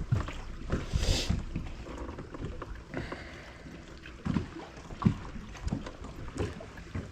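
Water lapping and slapping against a small fishing boat's hull in irregular low thumps, with a short hiss about a second in.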